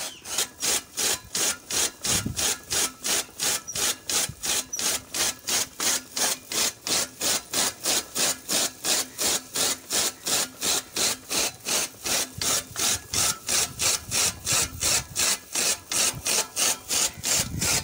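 An old ox-driven toka chaff cutter chopping green fodder: its flywheel blades slice through the grass in a steady rhythm of about three to four chops a second.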